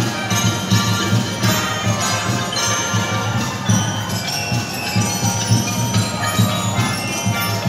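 Percussion band with melodic instruments playing a piece: many melodicas sustain the melody in chords over bell-like mallet keyboard instruments and a pulsing drum beat.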